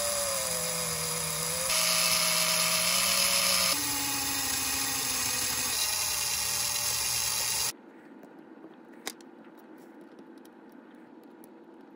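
Small electric motor of a 1963 Tri-ang Davy Crockett model locomotive running on test leads with the chassis upside down, a steady high whine that shifts pitch a few times. It cuts off suddenly about eight seconds in, followed by faint clicks.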